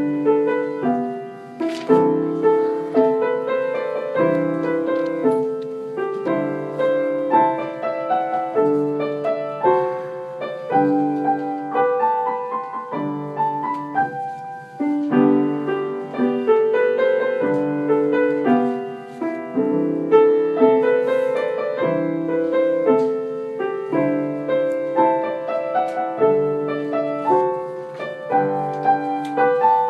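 Piano music: a lively, evenly paced run of chords and melody notes, changing about twice a second.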